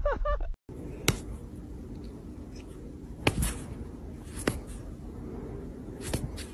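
Quiet indoor room hum with four short, sharp clicks or taps spread a second or more apart.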